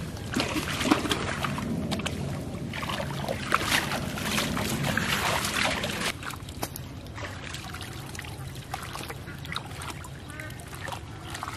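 Water splashing and trickling as a wet fishing net is hauled and worked by hand through shallow, weedy water. The splashes are busiest and loudest in the first half, then settle to quieter dribbling.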